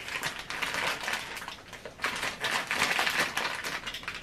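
Rustling from a polyester duvet cover being handled, with many small light clicks, busiest about halfway through.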